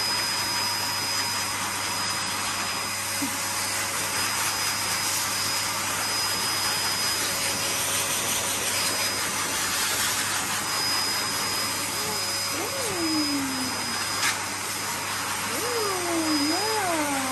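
Forced-air pet dryer running steadily, its hose nozzle blowing air into a wet dog's coat: a continuous rushing whoosh with a thin high tone. Near the end a voice makes a few drawn-out sounds that rise and fall in pitch.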